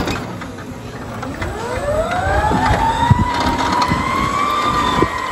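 Electric forklift's motor whining as it runs, rising in pitch over about two seconds and then holding steady, with a few knocks and clunks of the truck under it.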